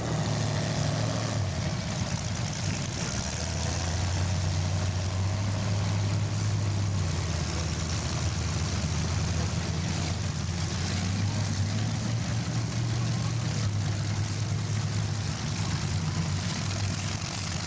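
Several big demolition derby cars' engines running together: a steady, dense drone with a low hum that swells and fades.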